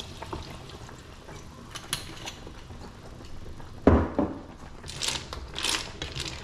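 A pan of clams simmering softly in white wine and tomato. About four seconds in there is a single sharp knock as the wine bottle is set down on the counter. Near the end the clam shells clatter and scrape as they are stirred with a wooden spoon.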